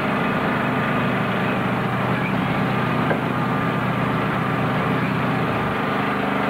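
An engine running steadily at idle, an even low drone with no change in pace.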